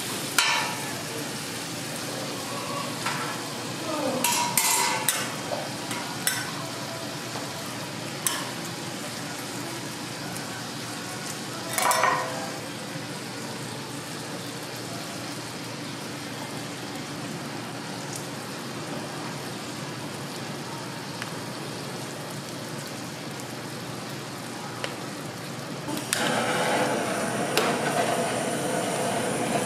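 Bacon and an egg sheet sizzling steadily on a flat-top griddle, with a few clicks and clatters of metal utensils. About 26 s in, a butane blowtorch is lit and hisses loudly over the sizzle.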